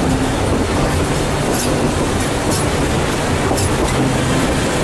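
Narrow-gauge railroad cars rolling along the track: a loud, steady rumble with a few sharp clicks of the wheels over the rails.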